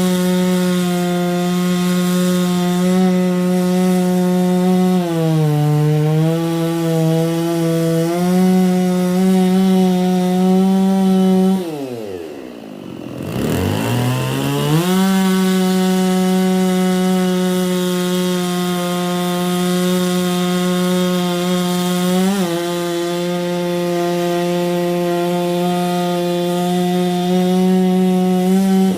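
Holzfforma G660 two-stroke chainsaw running at high revs while cutting wood, pulled down under load for a few seconds early on. About twelve seconds in the throttle drops and the revs fall away, then it winds back up to full speed and carries on cutting, with a brief dip in the revs later.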